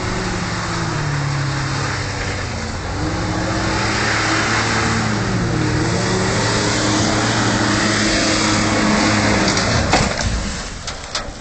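Holden VH Commodore's engine revving up and down through a drift, with tyre noise swelling under it, then a sharp crash about ten seconds in as the car hits a tree, followed by clattering.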